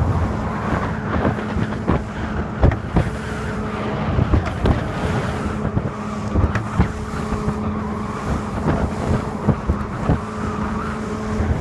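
Evinrude E-TEC 115 two-stroke outboard running steadily at half throttle, pushing an aluminium boat at about 20 knots, with the hull knocking irregularly on the waves and water and wind rushing past.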